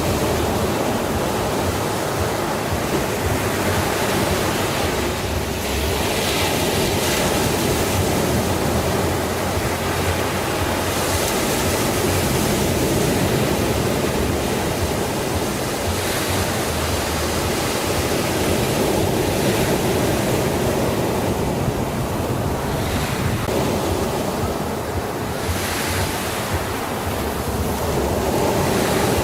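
Sea waves surging and washing on the shore in a steady wash of noise, with brief brighter hissing surges every few seconds.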